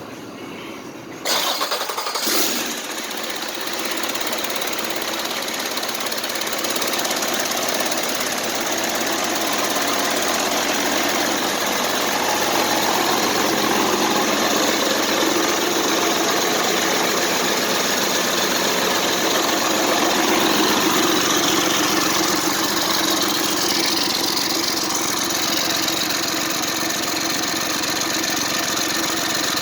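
A 2008 Mercedes-Benz OM926LA 7.2-litre inline-six diesel truck engine fires up about a second in, then runs steadily on a test run.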